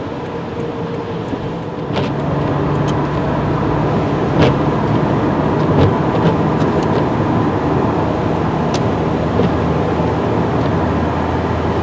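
Inside a moving car: steady engine and road noise that steps up in loudness about two seconds in, as the car picks up speed merging onto the highway. A few light ticks sound here and there.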